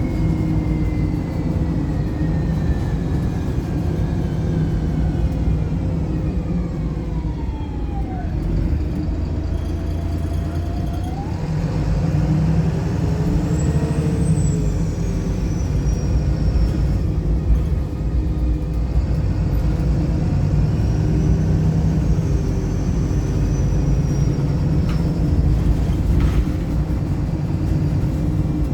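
Wright Pulsar single-decker bus heard from inside the saloon on the move: a steady engine drone with a drivetrain whine that falls in pitch over the first eight seconds or so, then climbs and arcs again as the engine grows louder from about twelve seconds in.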